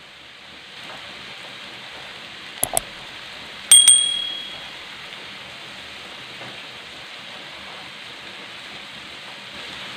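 Stir-fry of green beans, tempe and squid sizzling steadily in a wok. About two and a half seconds in come two quick clicks, and a second later a bright bell ding rings out and fades, the notification-bell sound effect of an on-screen subscribe button.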